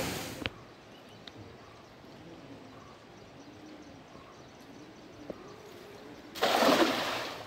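A rush of water noise cuts off abruptly about half a second in. About six and a half seconds in, a cast net lands on a still river pool with a brief, loud splash.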